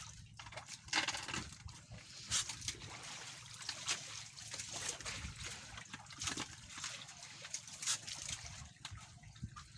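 Wet fishing net being pulled by hand over the side of a small boat, with water sloshing and dripping off it in irregular splashes.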